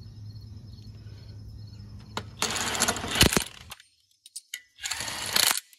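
A DeWalt 1/2-inch impact wrench running wheel lug nuts onto a front hub in two short bursts, about a second each, one near the middle and one near the end; the first ends in a sharp click. Faint crickets chirp beforehand.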